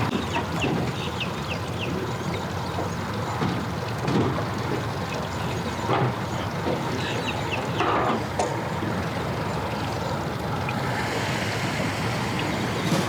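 Birds calling in short, falling chirps, in a burst near the start and another about seven seconds in, over a steady background hum.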